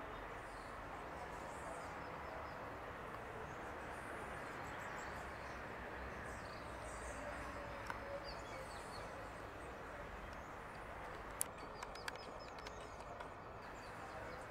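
Steady outdoor background noise with faint birds chirping, and a few sharp clicks in the second half.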